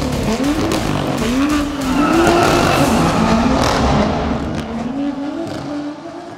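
BMW M2's turbocharged straight-six engine revving up and down over and over, with tyre squeal mixed in, as in a drift or burnout. The sound fades toward the end as the car moves off.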